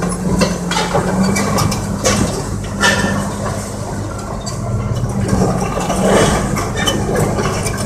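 Heavy diesel engines of a crawler dozer and tracked drill rig running steadily, with scattered sharp metallic clanks.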